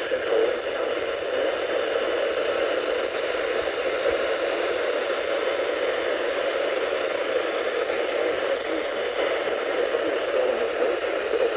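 Steady hiss of radio static on a weakly received NOAA Weather Radio signal. The broadcast voice is drowned out by the noise.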